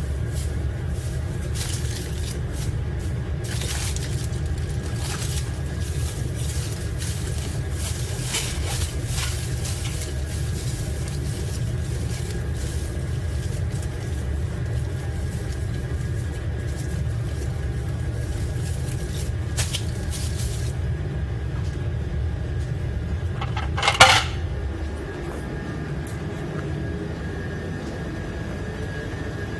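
Dishes, containers and utensils clinking and clattering in irregular short knocks over a steady low hum. One louder clank comes late on, after which the hum quietens.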